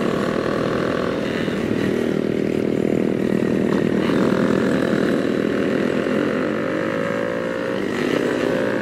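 Small-displacement motorcycle with a loud aftermarket exhaust running under way, the engine note steady, then rising slightly near the end as it picks up revs.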